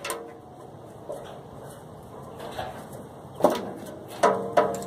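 Adjustable wrench clanking against the metal hub of a condenser fan blade while the blade is worked loose from the motor shaft: one knock at the start, then three sharper metallic clinks near the end, each ringing briefly.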